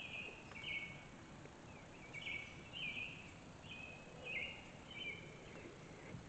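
A bird calling: a series of short, slightly falling chirps, repeated unevenly every half second or so.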